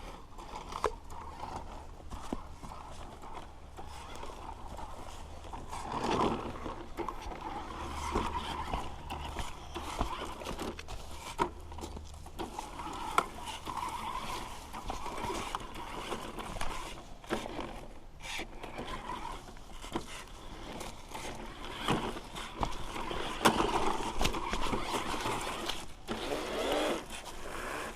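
Battery-powered toy RC monster truck driving over a rough dirt trail: its small electric motor running, with wheels rolling and bumping over the ground and scattered sharp knocks. The sound swells and fades as the truck speeds up, slows and moves about.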